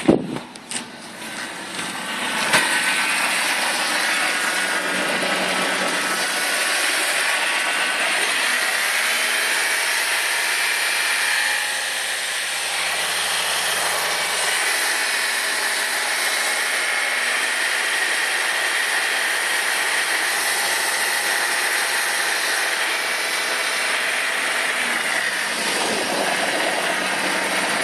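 BMW 318i's M43 four-cylinder petrol engine running with a rattling noise that began after the water pump failed and the engine overheated; its source is unknown to the owner. The sound builds up over the first couple of seconds, then holds steady, and its pitch drops near the end.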